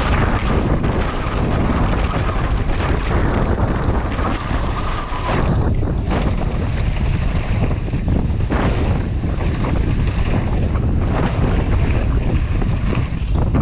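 Wind rushing over the microphone at speed during a downhill mountain bike run, with the tyres rumbling over the dirt trail and the bike rattling over bumps.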